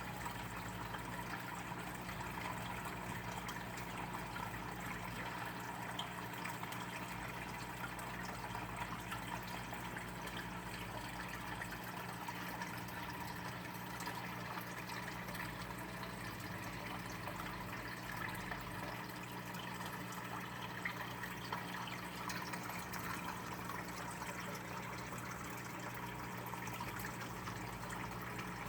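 Steady rushing noise with a constant low electrical hum underneath.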